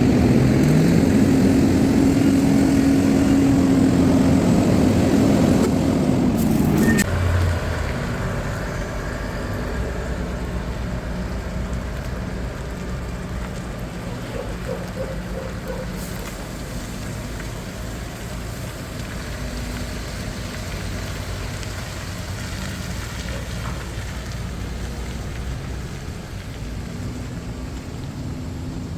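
Heavy diesel engine running, its pitch dipping and climbing again twice in the first seven seconds. About seven seconds in it drops off suddenly to a quieter, steady run.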